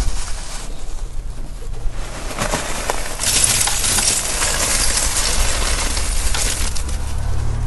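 Charcoal being poured from a sack into a pit: a rushing, clinking pour of many small pieces landing. It builds a couple of seconds in, is heaviest through the middle, then tails off.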